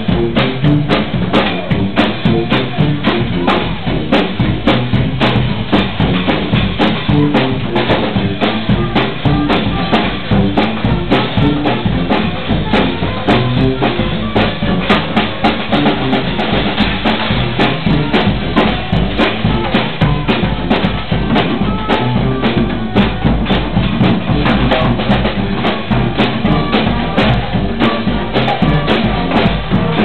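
Live marching-style brass band playing, with bass drum and snare drum keeping a steady beat under the horns.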